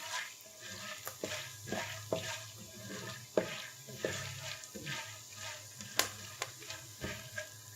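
Popcorn kernels starting to pop in hot oil in an open pan: irregular sharp pops, a few each second, over a faint sizzle of the oil.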